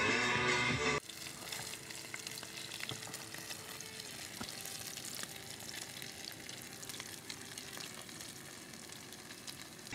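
Loud music cuts off about a second in. After that, food sizzles and crackles steadily in hot oil in a small camping pan over a portable gas canister stove.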